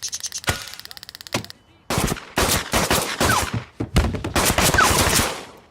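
Cartoon fight sound effects: a fast rattle of sharp strokes, then after a short pause a dense flurry of loud hits and thuds with a couple of brief falling whistles in it, as the officers lay into the ghost.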